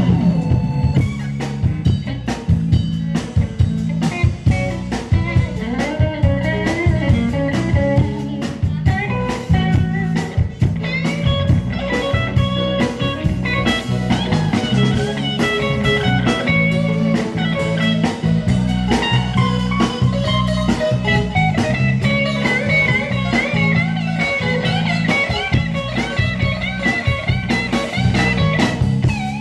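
Live band playing an instrumental blues-rock number: a guitar lead with bent, wavering notes over drums and a steady low bass line.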